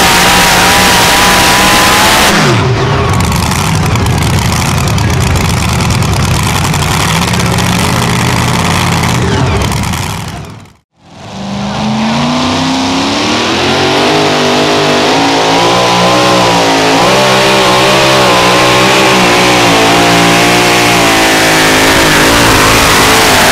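Supercharged pulling-truck engines at full throttle dragging a weight-transfer sled. The first truck's revs fall sharply a couple of seconds in, the sound cuts out briefly near the middle, then a second truck's engine climbs to high revs and wavers up and down as it pulls.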